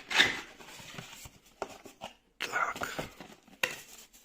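Small cardboard box being opened by hand: a loud rustling burst at the start, then scattered lighter rustles and handling sounds of the packaging.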